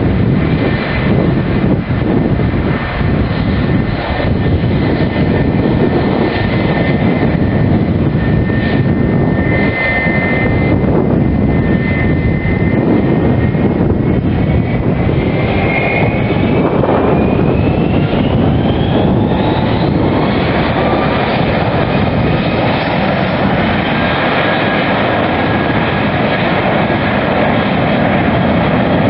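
Airbus A320 jet engines running loudly, with a steady whine; about halfway through, the whine climbs in pitch and holds higher as the engines spool up for the takeoff roll.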